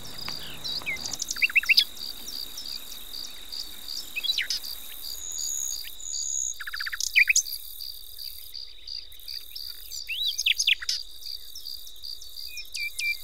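Crickets trilling steadily at a high pitch, with birds chirping in short bursts now and then.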